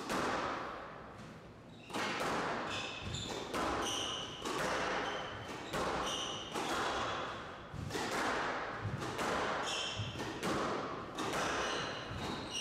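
Squash rally: the ball cracks off the rackets and the walls about once a second, each hit echoing around the court. Short high squeaks of court shoes on the wooden floor come between the hits.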